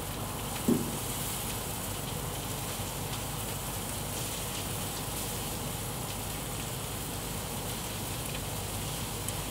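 Food sizzling inside a Landmann gas grill with its lid closed: a steady hiss. A brief low thump about a second in.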